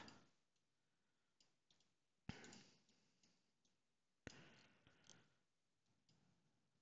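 Two computer mouse clicks about two seconds apart, each trailing off briefly, with a few fainter ticks between them; otherwise near silence.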